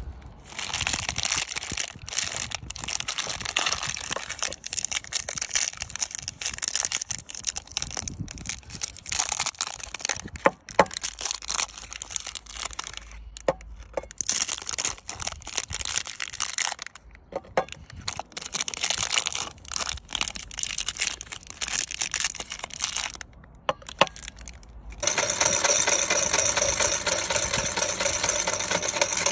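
Plastic soap wrappers crinkling and rustling as the bars are unwrapped, with sharp clicks and crackles. About 25 s in, the meat grinder's electric motor starts and runs steadily with an even hum.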